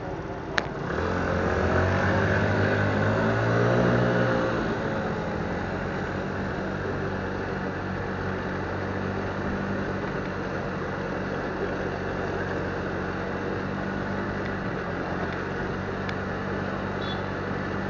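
Motorcycle engine pulling away, its pitch climbing and growing louder for a few seconds, then running steady at cruising speed over road hiss. A single sharp click comes right at the start.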